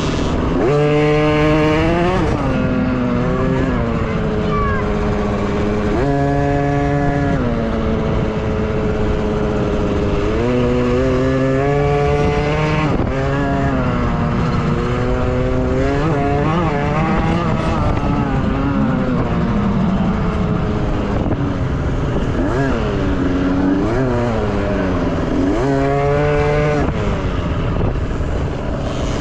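Small two-stroke dirt bike engines revving hard and backing off over and over, their high pitch rising and falling with the throttle.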